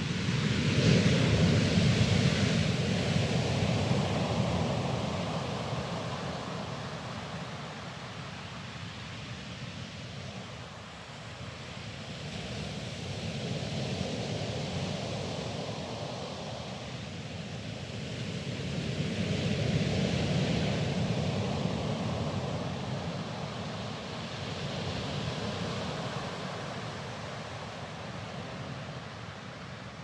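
Sea waves breaking and washing over a pebble beach: four slow surges of surf, the loudest about a second in, each swelling and then fading back.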